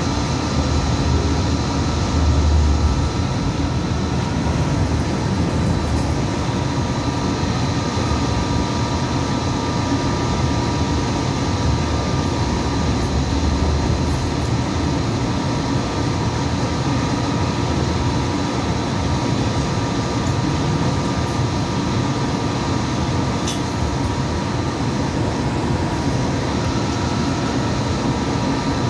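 Light rail car running at speed, heard from inside: a steady rumble of wheels on track with a constant high hum over it.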